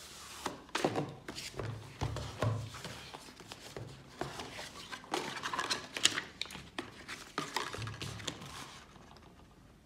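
Irregular knocks, taps and clatter of hard objects being handled, with a few dull thuds among them, settling down near the end.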